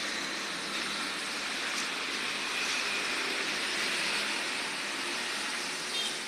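Steady, even background noise with no distinct knocks, clicks or engine note.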